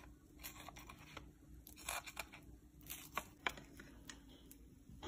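Faint scattered scrapes and clicks of a metal fork cutting through an egg-and-cheese tortilla on a plate.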